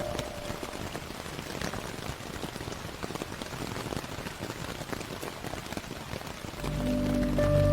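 Steady rain falling, a dense even patter with scattered sharp drop ticks. About six and a half seconds in, slow ambient music with a deep bass drone and held tones comes back in over the rain.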